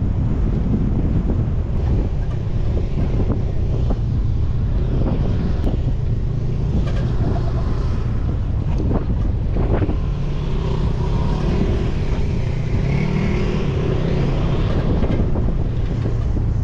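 An off-road vehicle driving up a dirt mountain trail: a steady, loud rumble of engine and tyres, with faint engine tones that drift in pitch partway through.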